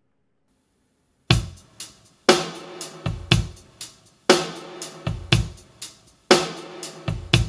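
Drum-heavy music played back through a Betavo WRX212N neodymium full-range line array speaker during an FIR-corrected sound check. It comes in sharply about a second in after a short silence, with a heavy kick-and-snare hit about once a second.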